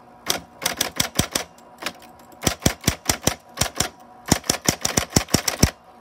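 Smith-Corona Coronet Super 12 electric typewriter being typed on, its motor humming faintly: quick runs of sharp typebar strikes against the platen, about two dozen in all, stopping near the end.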